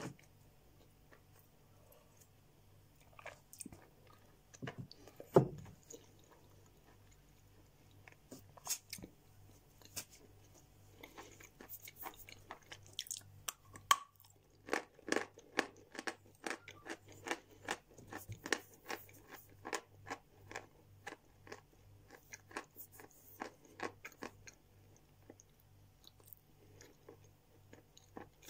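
A person biting and chewing a lump of chalk, making crisp crunches. The crunches are sparse at first, with one low thump about five seconds in. From about eleven seconds on they come as a dense, fast run of crunching bites.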